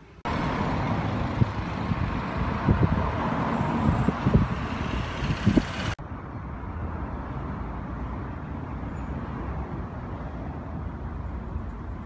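Road traffic noise. It is loud with a few sharp low knocks for the first six seconds, then cuts abruptly to a quieter, steady hum of traffic.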